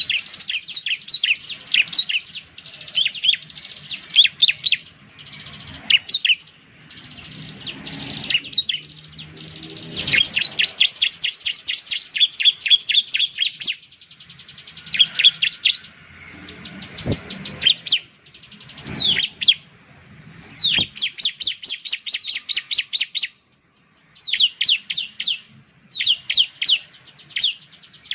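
Bar-winged prinia (ciblek) singing: fast runs of sharp, high chirping notes in repeated bursts, with a brief break of silence about two-thirds of the way through.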